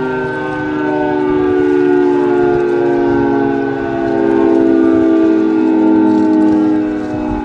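Federal Signal 2T22 two-tone outdoor warning siren sounding a steady chord during its weekly test alert, its loudness swelling and fading every two to three seconds as the rotating siren head sweeps past.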